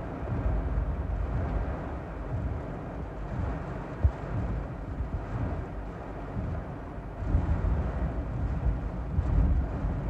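Torrential rain pounding on a car's roof and windshield, heard from inside the car, over a deep rumbling that grows louder about seven seconds in. There is a single sharp knock about four seconds in.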